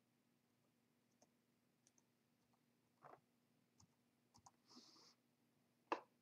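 Mostly near silence, with faint scattered computer keyboard key taps as a password is typed. There is a brief faint hiss near five seconds and one louder key click about six seconds in.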